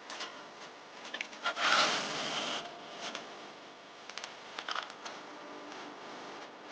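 Plastering trowel scraping and tapping on mortar, with scattered clicks and one louder scrape lasting about a second, around two seconds in.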